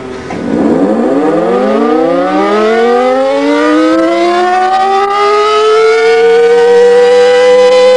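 A siren wailing in one long slow rise: its pitch dips about half a second in, then climbs steadily for several seconds and begins to fall again near the end.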